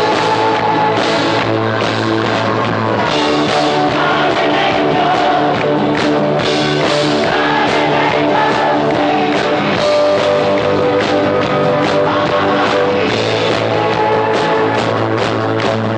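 A live band playing a rock song, with drum kit, guitar and singing.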